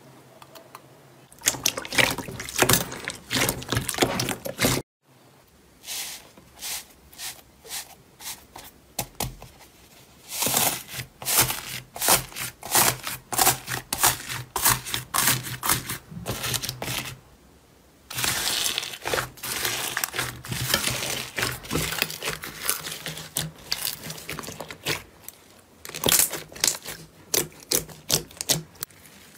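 Hands squishing, pressing and pinching slime, making dense crackling and popping clicks in bursts; in the middle the slime is packed with small foam beads that crackle under the fingers. The sound cuts off abruptly for a moment about five seconds in.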